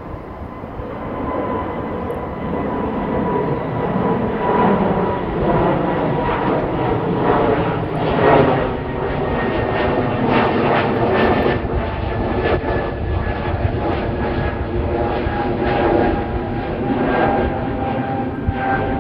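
Jet airliner's engines passing close by. The noise builds over the first few seconds and then holds as a rough rumble, with a thin whine that slowly drops in pitch.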